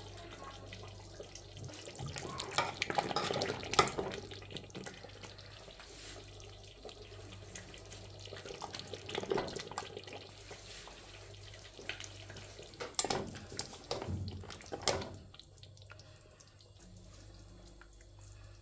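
Water running and splashing, as from a kitchen tap into a sink, with clusters of louder splashes and clatter a few seconds in, around nine seconds and around thirteen to fifteen seconds; it dies down near the end.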